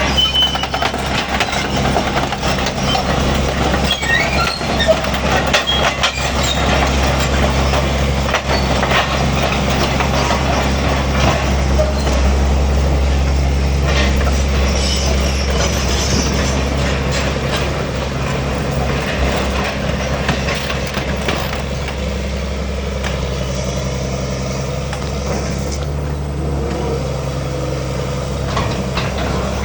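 A backhoe's diesel engine runs steadily. Through the first half there are repeated metal clanks and high squeaks from the machine's working parts, which thin out later.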